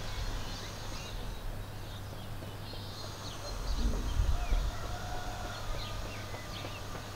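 Outdoor ambience: small birds chirping now and then over a steady low hum, with a low rumble swelling briefly about four seconds in.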